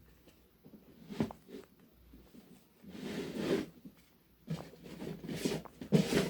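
A fidget toy being handled and worked by hand: a sharp click about a second in, then stretches of rubbing and rustling.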